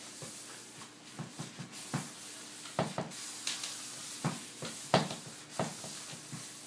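Paint palette being wiped and cleaned by hand: soft rubbing with scattered light clicks and knocks, over a faint steady hum.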